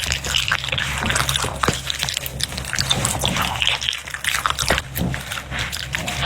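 A dog eating, with a busy run of irregular, wet chewing and slurping smacks.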